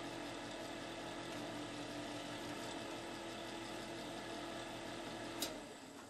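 Knapp-Monarch electric fin heater's fan running with a steady hum, its fan blade seemingly a little loose. Near the end a single sharp click, and the fan sound winds down, as the thermostat control is turned and switches off.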